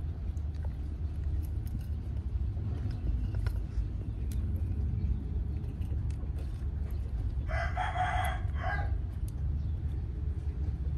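A rooster crows once, about a second and a half long, starting about seven and a half seconds in, over a steady low rumble.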